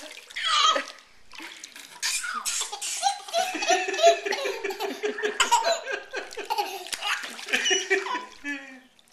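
Baby laughing hard with high-pitched belly laughs: a short burst at the start, a brief lull, then from about two seconds in a long run of quick laugh pulses, several a second.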